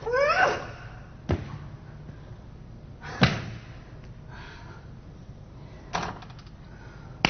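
A brief rising cry, then four separate heavy thuds or slams, a second or more apart, the loudest about three seconds in.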